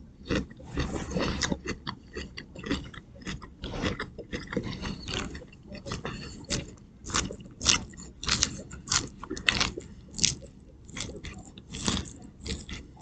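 Close-up chewing of a mouthful of chicken Caesar salad, with the irregular wet crunch of lettuce between the teeth.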